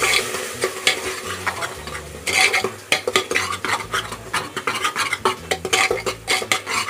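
Steel ladle stirring and scraping wet onion-tomato masala in an aluminium pressure cooker, with many quick clinks and scrapes against the pot over a sizzle of the masala frying.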